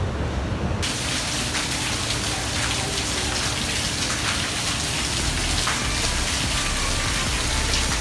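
Jets of a ground-level splash-pad fountain spraying up and falling back onto wet paving: a steady, even hiss of splashing water. It cuts in abruptly about a second in, replacing a low background rumble.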